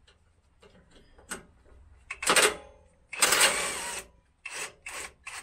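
A power tool running in short rattling bursts while the brake proportioning valve is taken off a Nissan Patrol Y61: two longer bursts near the middle and three short ones near the end.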